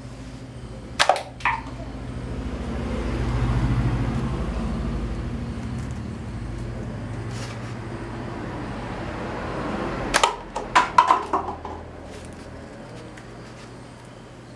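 Sharp snaps of a homemade paper rubber-band gun firing paper bullets, a couple about a second in and a quick cluster of several near the end, with the light clatter of paper cups being knocked off a stacked pyramid. A low steady hum runs underneath, and a rush of noise swells and fades in the middle.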